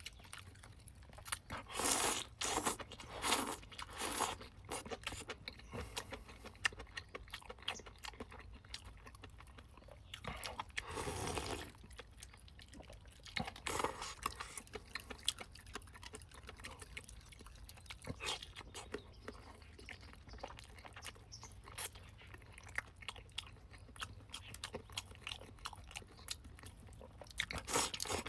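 A person chewing and biting into free-range chicken close to the microphone: irregular crunching and smacking, with louder bursts every few seconds.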